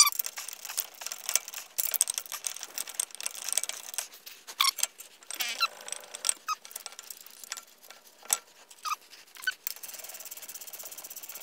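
Light metallic clicks, scrapes and small squeaks as a Mercedes front sport-brake caliper is worked onto its bracket and its bolts are threaded in by hand, with a fast even run of ticks near the end.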